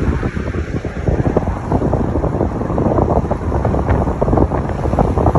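Wind buffeting a phone's microphone in a moving car: a loud, irregular low rumbling noise.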